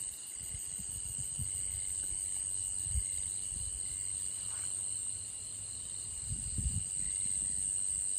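Night insects chirring in a steady, high-pitched chorus. Scattered low thuds of boots stepping on wet, muddy ground come and go, with a cluster of them past the middle.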